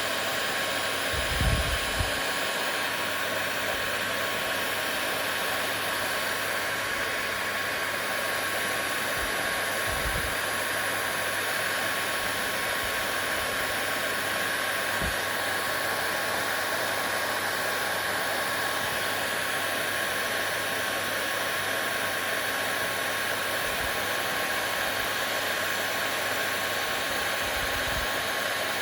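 Hair dryer running steadily: an even rush of air with a thin, constant whine from the motor. A few soft low bumps come through underneath, one just after the start, one about ten seconds in and one near the end.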